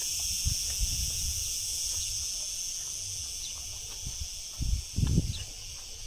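Steady, high-pitched chirring of insects, several pitches layered together, with low rumbling and a few low thumps near the end.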